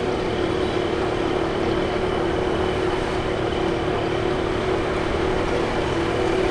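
Steady running noise of a vehicle in motion, an even rush with a constant low hum.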